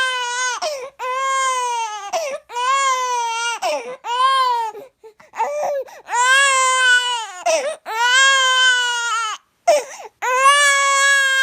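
Baby crying hard in a run of long wails, each about a second long, holding a steady high pitch and dropping off at the end, with short gasps for breath between them: the cry of a tired baby.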